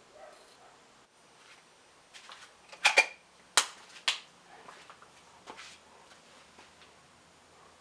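A handful of sharp taps: a loud double tap about three seconds in, two more in quick succession just after, and a few fainter ones around them.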